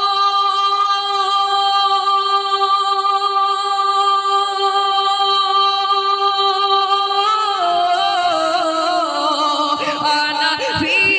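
A naat reciter singing unaccompanied, holding one long high note for about seven seconds, then sliding down through wavering, ornamented runs.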